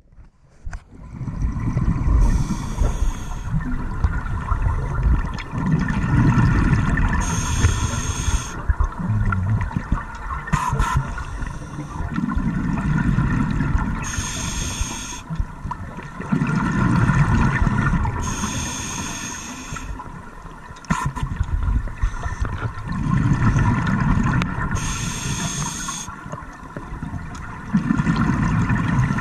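Scuba diver breathing through a regulator underwater, about one breath every five seconds: a short hiss on each inhale and a longer low bubbling rumble as the exhaled air bubbles out. A faint steady hum lies underneath.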